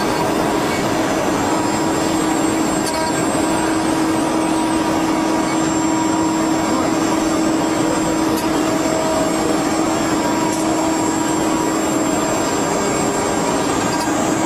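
Multi-spindle rotary CNC wood carving machine running while it carves wooden figurines: a steady motor hum with a constant whine over the noise of cutting.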